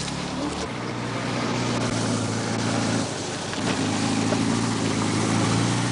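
A motor vehicle's engine droning steadily, with a brief break and shift in its pitch about three seconds in.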